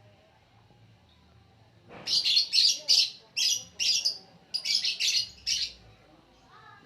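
Lovebird calling: after a quiet start, a quick run of about ten short, high-pitched chirps beginning about two seconds in.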